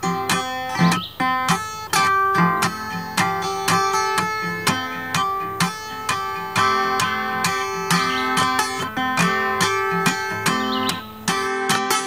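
Guitar music: plucked notes in a steady, repeating rhythm.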